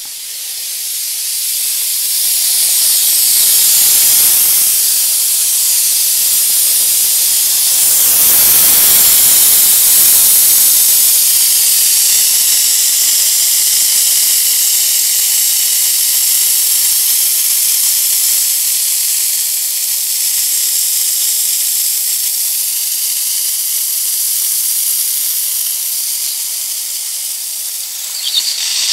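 Underground lawn sprinkler heads blowing out compressed air with a spray of water mist: a loud, steady hiss that builds over the first few seconds and swells about four seconds in and again around eight to ten seconds in. Water is still coming out with the air, a sign that the zone is not yet fully cleared.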